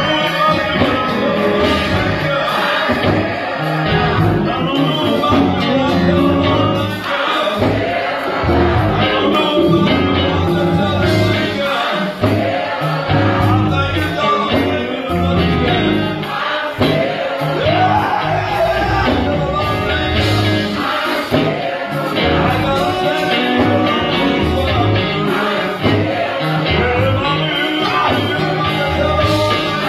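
Live gospel music: a man singing lead through a microphone and PA over keyboards, electric bass guitar and drums, with a steady beat.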